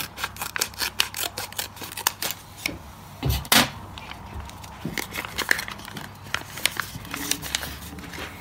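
Scissors snipping through a foil sheet-mask sachet in quick little clicks, then the sachet crinkling and rustling as it is pulled open by hand, with one sharp clack about three and a half seconds in.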